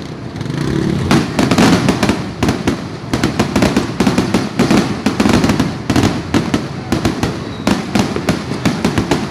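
A dense, continuous barrage of New Year fireworks and firecrackers going off, with many overlapping bangs and pops over a low rumble.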